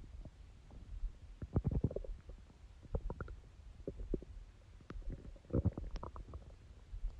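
A person's stomach growling: irregular gurgles and small pops over a low rumble, with two louder bursts of gurgling, one about one and a half seconds in and another near six seconds.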